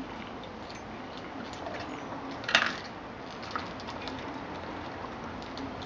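A collie chewing raw rabbit meat and bone: scattered wet clicks and crunches of teeth, with one loud crunch about two and a half seconds in and a smaller one a second later.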